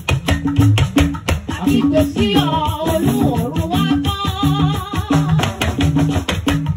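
Yoruba talking drum (gangan) played with a curved stick in a quick, steady rhythm. Its notes jump between a few pitches, and in the middle stretch it bends up and down in gliding, speech-like tones.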